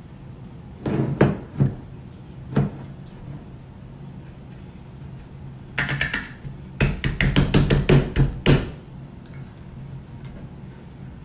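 Glass pickle jar and its stuck metal lid being worked by hand to open it: a few sharp knocks and taps at first, then a quick run of about eight knocks in under two seconds.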